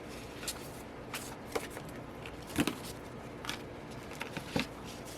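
Postcards and paper album inserts handled by hand: a string of scattered light taps and rustles, the loudest about two and a half seconds in.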